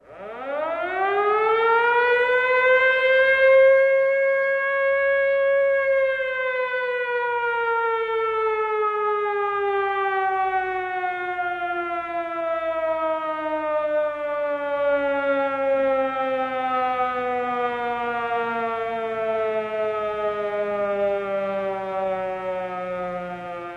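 Emergency siren winding up quickly to a high wail, holding it for a few seconds, then slowly sliding down in pitch as it winds down.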